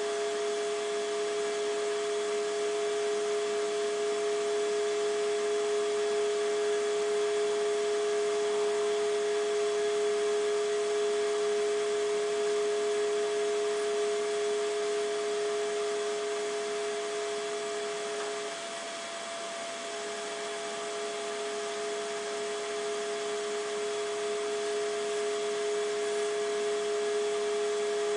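CNC milling machine running with a steady, pitched whine over a machine hiss; the tone briefly drops out and the level dips about two-thirds of the way through, then returns.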